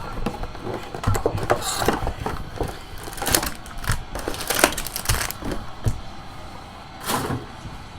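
Plastic wrapping on a trading-card box and its packs crinkling and tearing as they are ripped open, in a run of irregular sharp crackles.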